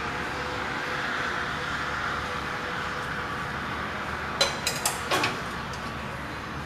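A quick run of about five sharp clicks, a bit past halfway, as hands handle parts at the carburetor of a John Deere 212's Kohler engine, which is not running. Under them is a steady hiss of heavy rain.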